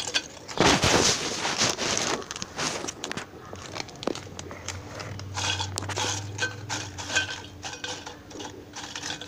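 Crisp fried samosa-pastry offcuts tossed by hand with chilli powder in a steel bowl: a dry crackling rustle with light clinks against the metal, loudest in the first two seconds.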